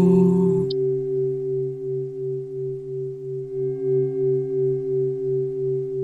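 A chanted vocal drone ends under a second in, leaving a low, steady meditation tone like a singing bowl, its loudness gently pulsing about twice a second.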